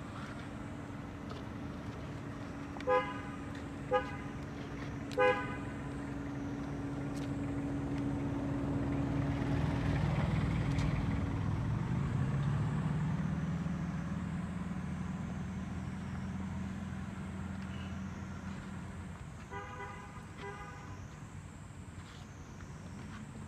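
Vehicle horn beeping three short times, then a motor vehicle passing on the road, its engine growing louder and fading away. Later a quick run of horn beeps.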